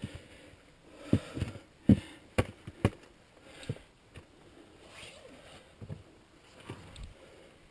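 A climber's gloved hands, boots and gear knocking and scraping against rock while moving up a chimney, with clothing rustling. Several sharp knocks come between about one and three seconds in, the loudest near two seconds, then a few quieter bumps later.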